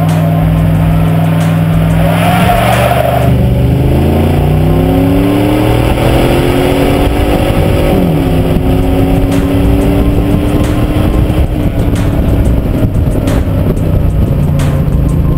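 2000 Dodge Dakota's 4.7L Magnum V8 exhaust as the truck pulls away under throttle. The engine note climbs from about two seconds in, drops sharply about eight seconds in as the transmission upshifts, climbs again, then settles to a steady cruise near the end, over tyre and road noise.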